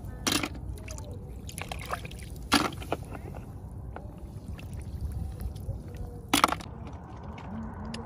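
Shallow water among rice stubble splashing and sloshing as a hand reaches in to pick up snails and feet wade: several short splashes, the loudest about six seconds in, over a steady low rumble.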